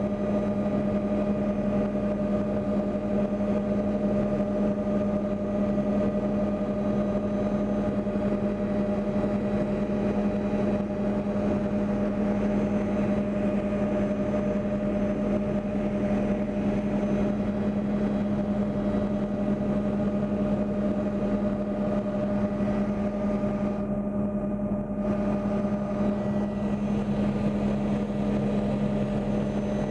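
Aircraft engine droning steadily in flight, heard from inside the cabin.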